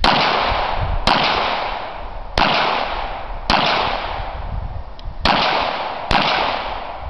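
Six pistol shots fired about a second apart, with a longer pause before the fifth; each shot trails a long, fading echo.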